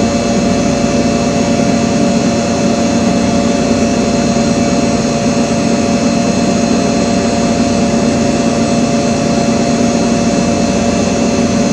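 Steady mechanical hum and hiss with a few fixed tones, unchanging throughout, like a running fan or appliance motor.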